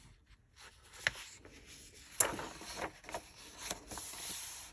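Pages of a coloring book being turned and hands rubbing the paper flat, a run of rustles and short sharp taps, the loudest about two seconds in.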